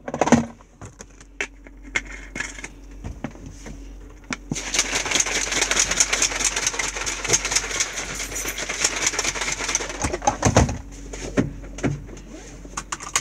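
Plastic protein-shaker bottle shaken hard to mix powder into water, making a dense run of rapid rattling clicks and sloshing for about five seconds. Before it come a few scattered clicks of handling the bottle and lid. After it come a couple of heavier knocks.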